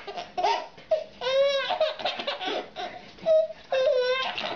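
Baby laughing and squealing in a series of short, high-pitched bursts, the pitch arching up and down.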